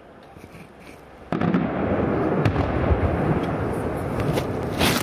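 Aerial fireworks going off: a few faint pops, then a little over a second in a sudden loud onset of dense crackling that keeps up, with a sharp bang near the end.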